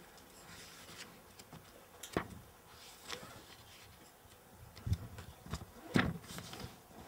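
Paper pages of a book being turned and rustled, with a few sharper page flips about two, five and six seconds in.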